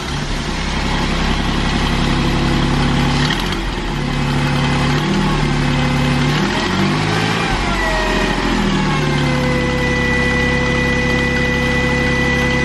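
2008 Jeep Wrangler's 3.8L V6 engine running, with a high, thin electrical whine over it. The engine note shifts about halfway through as the whine slides down in pitch, then both hold steady. The owner takes the whine, along with a burning smell, for a sign that the alternator is failing.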